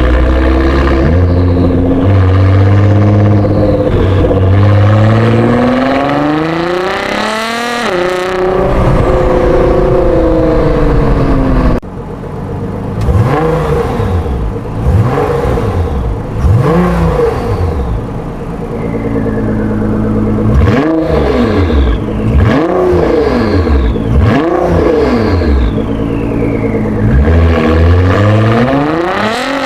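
Nissan GT-R R35's twin-turbo V6 breathing through a Fi Exhaust full valved system with downpipe, revving. There is one long climb and fall in pitch, then after a cut a series of short throttle blips, with another climb near the end.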